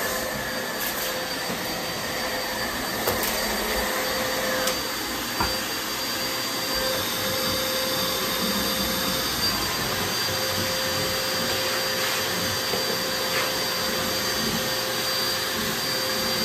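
Bagless upright vacuum cleaner running steadily as it is worked over a rug, a dense rushing noise with a steady motor whine. There are a couple of brief knocks a few seconds in.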